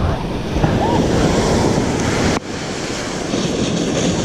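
Gulf surf washing on the beach, with wind buffeting the microphone. A brief faint chirp sounds about a second in, and the noise drops suddenly a little past the halfway point.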